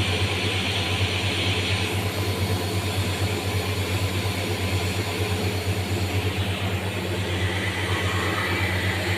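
CNC grinding machine running: a steady low hum, with a higher hiss that fades about two seconds in and returns near the end.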